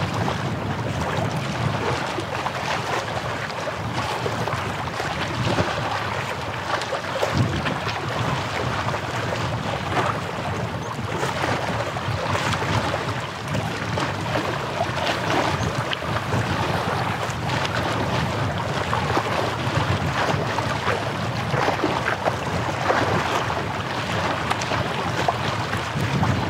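Small waves washing steadily against the shore, with wind.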